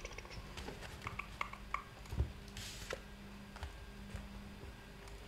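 Faint handling of tarot cards: scattered soft taps and clicks, with a brief papery swish about two and a half seconds in, over a low steady hum.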